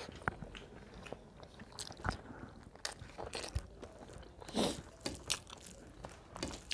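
Close-miked eating: food being chewed and crunched, in a run of short crisp clicks with a louder crunch about four and a half seconds in.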